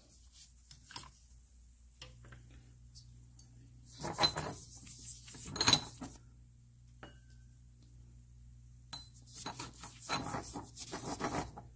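Cast iron pipe flanges and fittings clinking and scraping against each other as they are handled and brushed with a toothbrush, in two bursts of clatter about four and nine seconds in. A low steady hum runs underneath.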